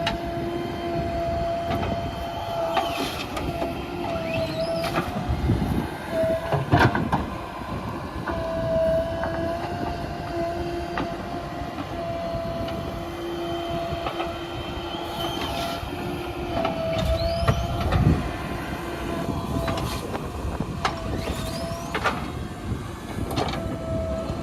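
JCB 3DX backhoe loader's diesel engine running hard with a steady hum that drops out and returns as the hydraulics work, and several knocks and clatters of the bucket and earth, loudest about six to seven seconds in and again around eighteen seconds.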